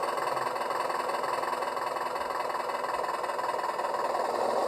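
The RC vaporetto model's drive running steadily: an even, continuous mechanical hum without change in pitch.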